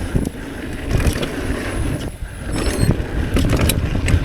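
Hardtail mountain bike ridden over a dirt trail: tyres crunching over dirt and rocks and the bike rattling with many sharp clicks, over a heavy low rumble of wind on the microphone. A brief high-pitched squeak comes in about two and a half seconds in.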